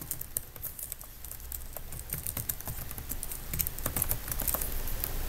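Computer keyboard typing: a run of quick, irregular keystroke clicks that come thicker in the second half.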